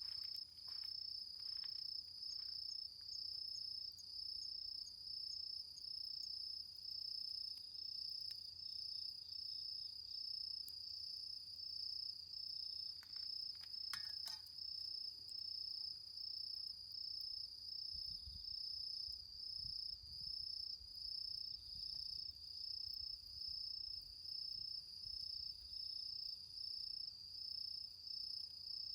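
Crickets singing: a steady high-pitched trill that dips in level about once a second, with a few faint clicks.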